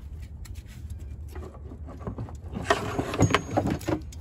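Jet ski engine being lifted by hand out of its fibreglass hull: scattered knocks and clicks, then a louder run of scrapes and knocks over the last second and a half as it comes free.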